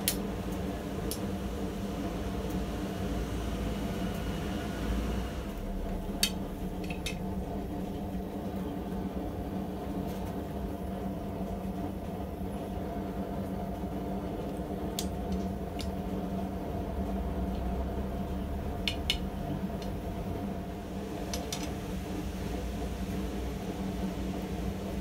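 Scattered sharp metal clinks as a hot steel bar and steel pins knock against a steel bending jig while the bar is bent, over a steady low machine hum. A higher hiss stops about five seconds in.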